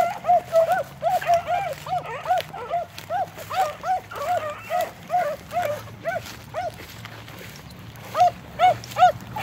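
Beagles giving tongue while running a rabbit's scent trail: a steady string of short, arching bawls, about three a second, that pauses for about a second and a half near the end and then starts again.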